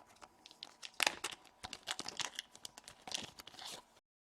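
Paper crinkling and rustling as the paper certificate is taken out and handled, a quick irregular run of crackles lasting about three seconds that stops abruptly near the end.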